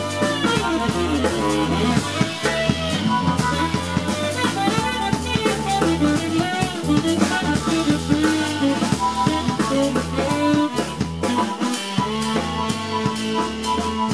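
Live rock band playing: drum kit keeping a steady beat of bass drum, snare and rimshots under electric guitar and other pitched instruments, recorded from the audience floor.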